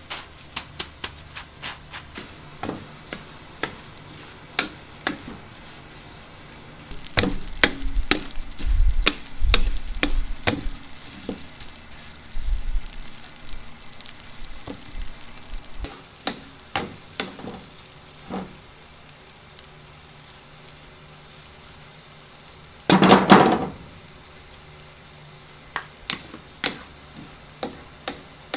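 Wooden spatulas scraping and knocking against a large metal pot as tiny dried fish are stir-fried, over a light sizzling hiss. The first few seconds hold only scattered light clicks. There is one loud clatter about three-quarters of the way through.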